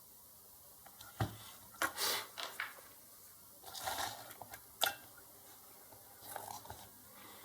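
Handling noises while setting up a meter to measure a circuit board: a few sharp clicks and short scrapes and rustles, scattered and irregular.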